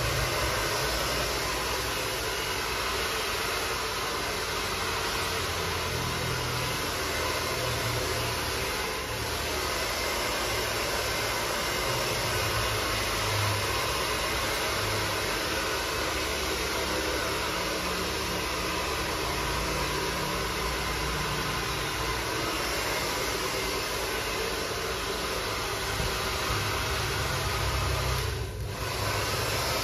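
Hand-held hair dryer blowing steadily while a barber dries and styles hair, with a brief dip in the sound near the end.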